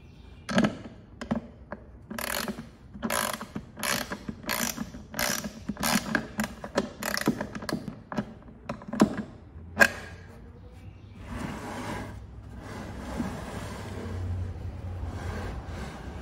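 Ratchet wrench clicking in repeated short strokes, roughly one every 0.7 seconds, as it tightens a bolt on the cast-iron crank bracket of a wooden tub. After about ten seconds the clicking stops and a softer, steadier noise follows.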